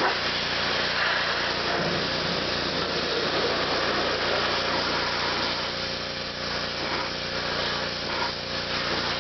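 Small engine running steadily at a constant speed, with no change in pace.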